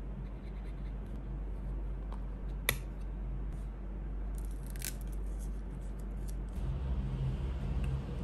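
Sharp plastic clicks from handling art supplies, including a small white plastic watercolour palette case: one sharp snap about a third of the way in, then a quick cluster of clicks around the middle. A steady low hum runs underneath.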